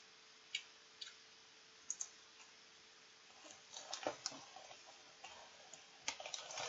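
Potato chip being bitten and chewed close to the microphone: a few single sharp clicks in the first two seconds, then bursts of crisp crunching around four seconds in and again near the end.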